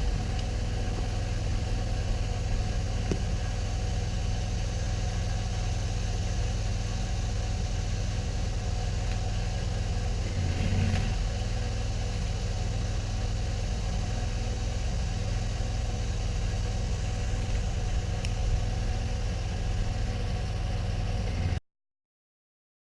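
Pressure washer's engine running steadily, with a brief swell about halfway through; the sound cuts off abruptly near the end.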